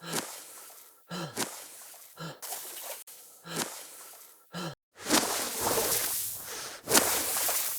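Human breathing sound effects: five short, sharp gasps about a second apart, then two longer, noisy breaths, each starting abruptly, about five and seven seconds in.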